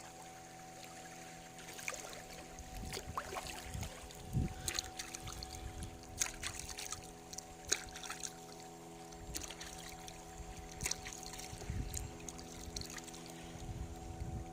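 Boat engine running at a steady pitch, with irregular splashing and trickling of water over it.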